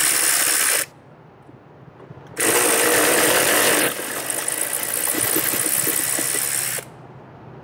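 Power ratchet spinning a brake caliper bracket bolt out: a short run ending about a second in, then a longer steady run of about four seconds.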